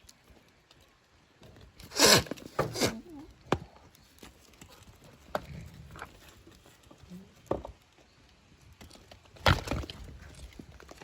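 Goats jostling at a wooden fence: scattered sharp knocks and thuds, with a loud cluster about two seconds in and another near the end.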